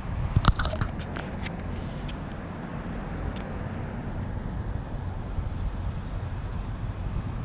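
Steady low rumble of outdoor traffic, with a quick cluster of sharp clicks and knocks in the first second and a half.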